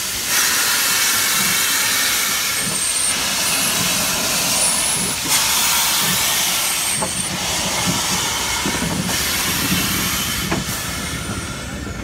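Steam hissing from an SNCF class 140 C 2-8-0 steam locomotive as it stands venting steam low at its front end: a loud, steady rush that swells and eases several times, over a low rumble.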